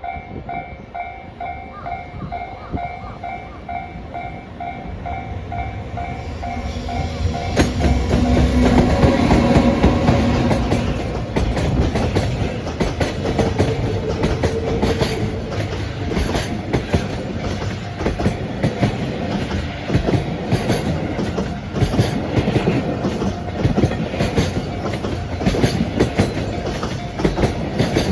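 A level-crossing warning bell dings in a steady repeating pattern. About seven seconds in, a JR Freight EF210 electric locomotive arrives, loudest just after it reaches the crossing. A long string of Koki container flatcars then rumbles past, their wheels clacking rapidly over the rail joints.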